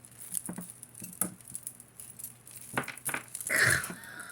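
Metal beads and chains of a heavy necklace clicking and rattling against each other as a tangle is worked loose by hand, with a louder, longer clatter a little past halfway.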